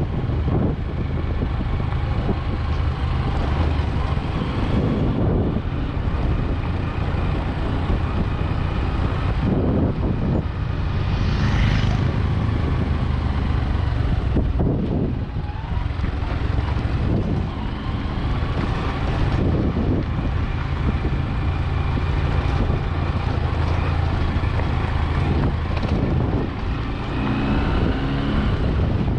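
Vehicle engine running steadily with road noise.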